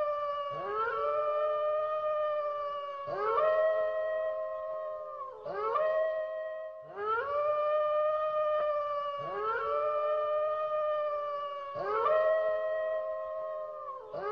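Long, howl-like wailing cries, one after another with only short breaks: each slides up at the start and then holds on one pitch for about two seconds. The recording is presented as the weeping of La Llorona.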